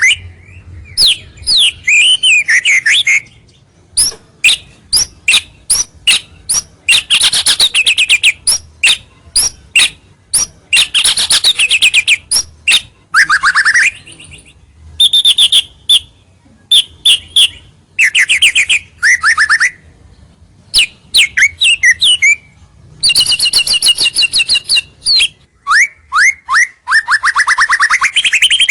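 White-rumped shama singing loudly and continuously. Its song mixes runs of sharp, clicking single notes with rapid trills and gliding whistled phrases, separated by short pauses. This is a territorial song of the kind used as a lure to draw rival birds in.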